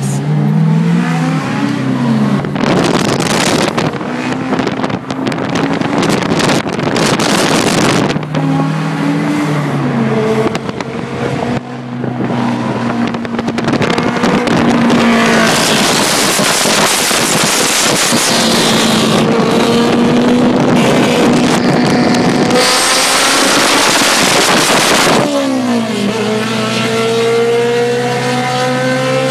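Straight-piped Honda S2000 and a turbocharged SR20DET 240SX running hard at freeway speed, their engine notes climbing and falling as they accelerate and change gear. Long spells of loud wind and road rush come in over the engines.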